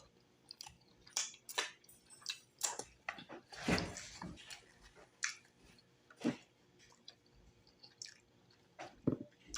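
Close-miked wet chewing and lip-smacking of cooked cow foot: irregular short sticky clicks and smacks, the loudest and longest a little under four seconds in.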